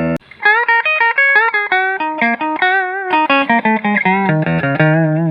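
Fender Telecaster electric guitar playing a quick single-note lead line with string bends and vibrato. A ringing chord is cut off right at the start, and the phrase settles onto lower held notes near the end.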